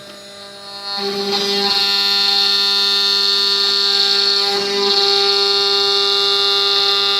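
CNC router spindle whining steadily while cutting a wooden Stratocaster guitar body, getting much louder about a second in as the bit works the wood.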